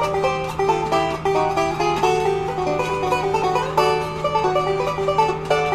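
Bluegrass banjo music with rapid plucked notes, over a steady low hum.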